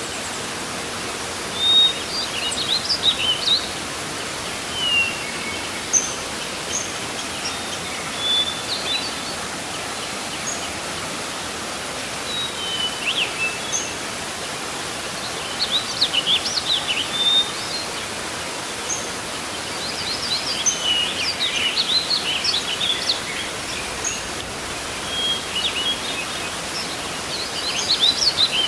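Steady rush of falling water from a waterfall, with birds chirping and calling in short high bursts, busiest about two-thirds of the way through.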